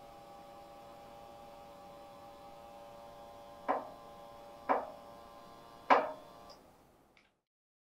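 Electric motor of a Freeway SA160C mini stand aid's powered leg opening running with a steady hum as the base legs spread apart, worked from the hand control. Three sharp knocks come about a second apart in the second half, and the motor stops just after the last one.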